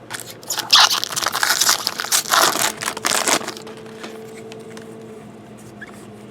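Foil wrapper of a trading card pack being torn open and crinkled for about three seconds, followed by a faint steady hum.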